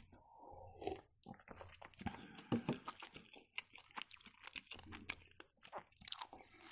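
Close-up eating sounds: a sip from a cup, then wet chewing with small mouth clicks. About six seconds in, a piece of Ossetian cheese pie is torn off and bitten.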